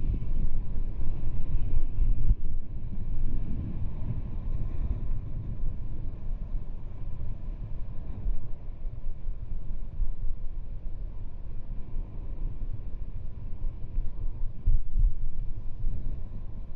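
Wind buffeting the microphone of a skier moving downhill, a steady low rumble, mixed with the hiss and scrape of skis sliding over packed, groomed snow.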